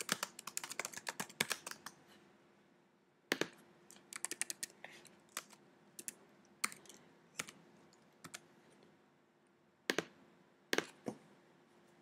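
Typing on a computer keyboard: a quick run of keystrokes, a pause, another run a little after three seconds in, then single key presses spaced out, and two louder clicks near the end.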